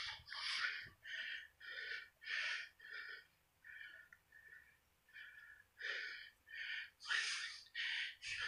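Faint, breathy puffs from a person, short and roughly two a second, easing off for a moment midway.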